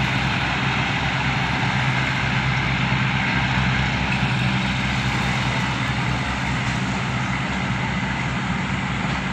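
Diesel train engine running steadily with a low hum as the train pulls slowly out of the station.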